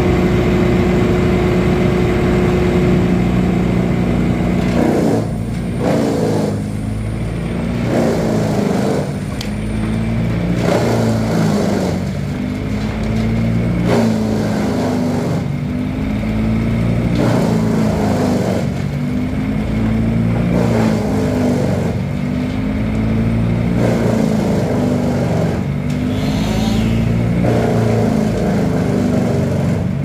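Two-stroke chainsaw bucking maple branches, its engine revving up and easing off over and over as it cuts. A steady engine drone runs underneath.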